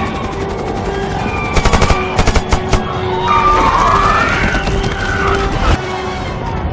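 Action-film soundtrack: music with a held note, a volley of rapid gunfire from about one and a half to three seconds in, then a rising and falling wail.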